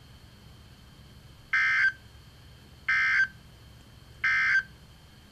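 Emergency Alert System end-of-message signal: three short bursts of warbling digital SAME data tones, about a second and a half apart, marking the end of the alert message.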